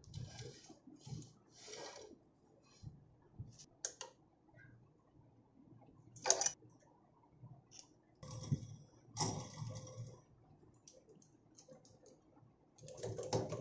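Scattered light metallic clicks and scrapes from hands working a homemade metal drill press vise: its screw being turned and a bolt tightened with an open spanner. One sharper click comes about six seconds in.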